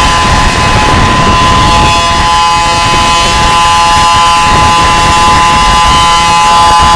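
Outdoor warning siren sounding a steady chord of several held tones, over heavy wind rumble on the microphone.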